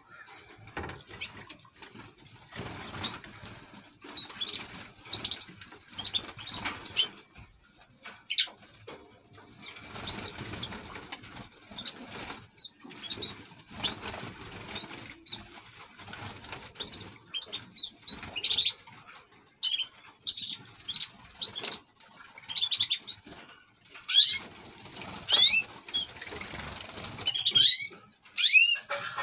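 Aviary of canaries and young greenfinch hybrid chicks: wings flutter as the birds flit between perches, with many short, high chirps and call notes scattered throughout.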